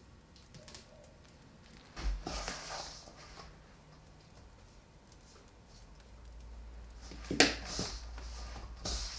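Quiet food-preparation handling noises: a short rustling burst about two seconds in and a sharp knock about seven seconds in, over a low rumble.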